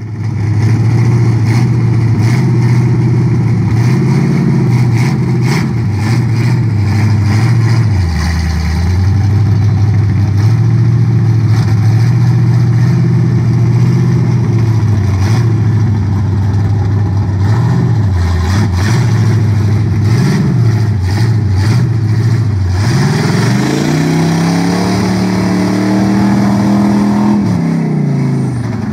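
Small-block Chevy V8 in a lifted stepside Chevy mud truck running under steady throttle through a mud bog, with the revs dipping and rising a few times. About 23 s in it revs up high, holds, and drops back near the end.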